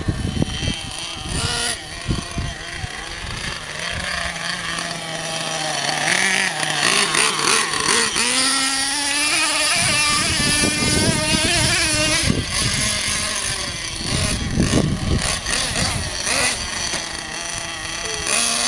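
Thunder Tiger MTA4 S50 Sledge Hammer RC monster truck's small nitro engine running and revving, its high buzzing pitch rising and falling with the throttle.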